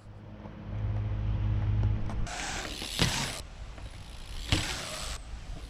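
A BMX bike being handled: a low hum for about two seconds, then bursts of mechanical rattling and clicking, with two sharp knocks about three and four and a half seconds in.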